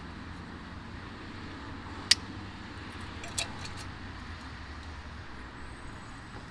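A knife breaking hexamine fuel tablets on a small metal folding stove: one sharp click about two seconds in and a few lighter clicks about a second later, over a steady low rumble.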